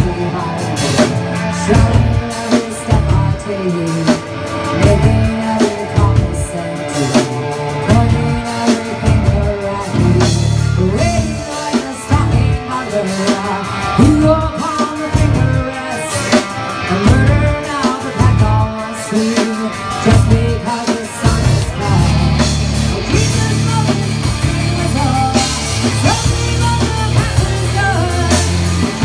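Live rock band playing loudly: drum kit, distorted guitars and bass, with a voice singing over it.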